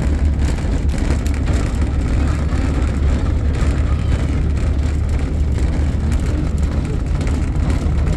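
Steady low rumble of a tourist road train on the move: the towing unit and the wheels of its chain-coupled trailer cars, heard from aboard.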